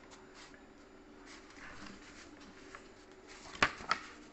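A paper user-manual booklet handled with soft rustles, then flipped through, giving two sharp paper slaps about a quarter second apart near the end.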